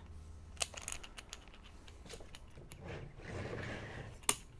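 Light, scattered clicks and knocks of a pressure washer hose and its fitting being handled at the machine's front outlet during assembly, with one sharper click near the end.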